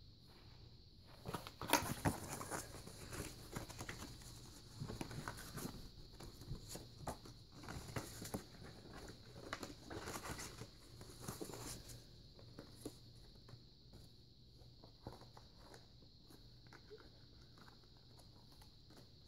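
Stiff paper game cards being handled and flicked through by hand: a run of soft rustles and light taps that thin out after about twelve seconds.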